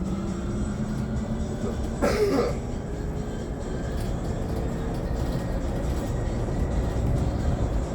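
Inside a Hyundai Elec City electric bus on the move: low road and tyre rumble with the faint whine of the electric drive, which rises and falls in pitch. A brief louder noise comes about two seconds in.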